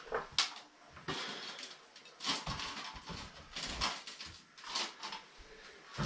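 Irregular rattling, scraping and rustling as a wire live trap holding a live squirrel is handled and pulled down out of an attic hatch, with short knocks among them.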